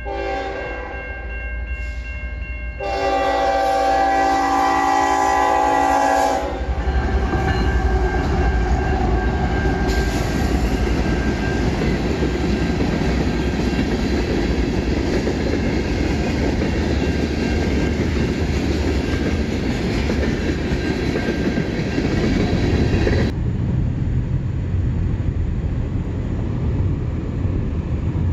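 A Canadian National diesel freight locomotive's horn sounds a multi-note chord at a grade crossing, louder for a few seconds near the start, then cuts off. The heavy rumble of the locomotives and tank cars rolling past follows. Near the end it gives way to a lower, steadier rumble.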